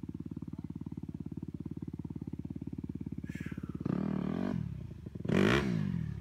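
Honda enduro motorcycle's engine idling with a fast, even thump, then revved hard twice from about four seconds in, the second rev the loudest.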